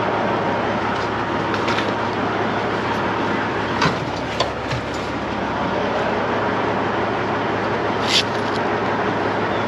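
Steady running noise of heavy wrecker diesel engines, with a few sharp metallic clanks about four seconds in and again near the end.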